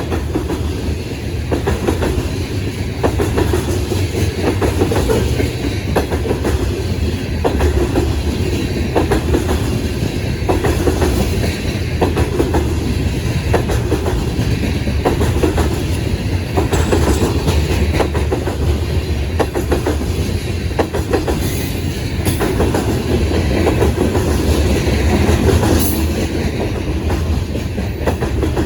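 A train's cars rolling steadily past, with a continuous rumble and the repeated clickety-clack of wheels striking rail joints.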